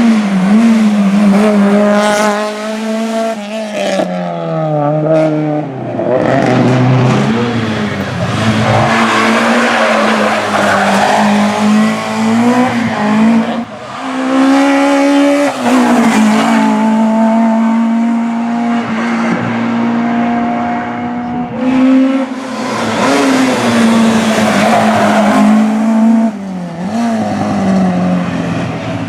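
Rally cars driven hard at competition pace, their engines revving up and down through gear changes and lifts of the throttle, with tyre noise. Several runs follow one after another, broken by abrupt changes.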